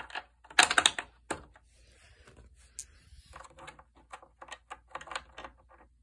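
Clicking and light clattering of the Hoover WindTunnel's plastic brush-roll housing being handled and fitted back together by hand. The loudest clatter comes about half a second in, followed later by a run of small, quick clicks.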